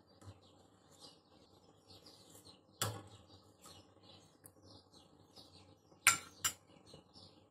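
A metal ladle clinks against a stainless steel cooking pot during stirring: one knock about three seconds in, then two sharp clanks close together about six seconds in. Faint bird chirps run underneath.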